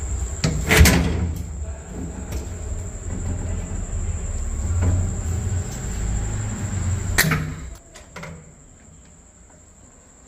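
Pliers clicking sharply a few times, two clicks standing out, over rumbling handling noise while wire is cut and stripped at a distribution board, with a faint steady high whine throughout. The rumbling stops about three-quarters of the way through.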